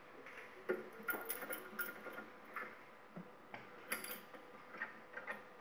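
Stainless steel fittings of an SYF 1000 filling machine clicking and clinking as they are handled and taken apart by hand: a string of irregular light knocks, some with a short metallic ring, over a faint steady hum.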